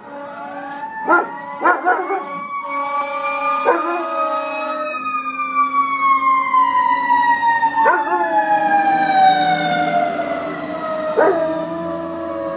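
A fire truck siren wailing, rising in pitch for the first few seconds and then falling slowly, while a young German shepherd howls along with it, breaking in with a few short sharp yelps.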